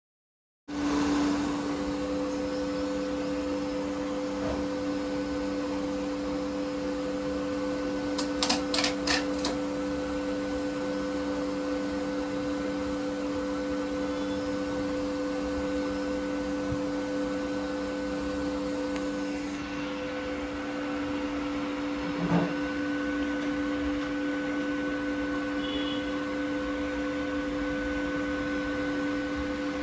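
Bambu Lab P1S 3D printer running, with a steady fan hum carrying two steady tones. A quick run of sharp ticks comes about nine seconds in, and a single knock a little past twenty-two seconds.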